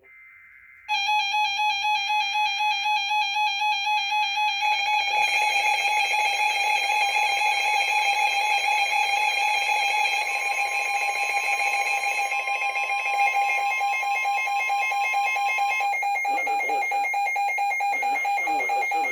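Emergency Alert System tornado-warning alert tone: a loud, steady electronic alarm tone with a fast warble, starting about a second in. A second, higher steady tone joins for several seconds midway.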